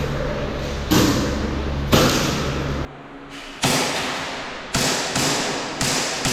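Background music with heavy, echoing hits roughly once a second over a low bass drone, which drops out briefly midway.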